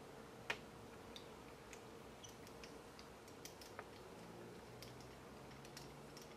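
Faint, irregular small clicks and ticks of a small screwdriver turning a tiny screw into a plastic RC-kit interior part, with one sharper click about half a second in.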